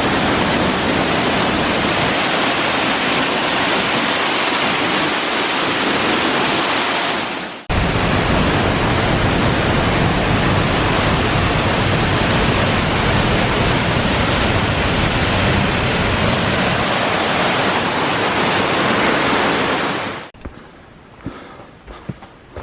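Steady rush of cascading water, as from a waterfall, with a brief dip and jump about eight seconds in. About twenty seconds in it cuts off abruptly, leaving a quiet background with a few soft clicks.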